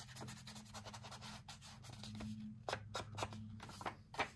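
Edges of dark paper being inked: a run of quick rubbing and scuffing strokes of an ink applicator against the paper, with a few sharper strokes in the second half. The ink covers the white core showing at the paper's cut edge.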